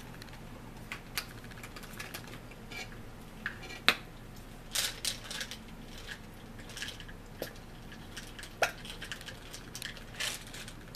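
Scattered small clicks, taps and rustles of plastic condiment bottles, caps and utensils being handled at a table, the sharpest click about four seconds in.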